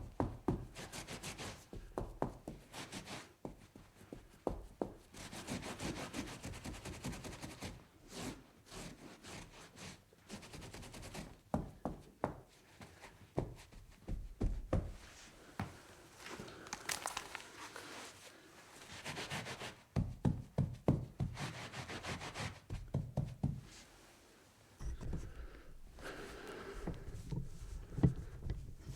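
Wiping and scrubbing on a table top in irregular strokes, with scattered knocks and taps.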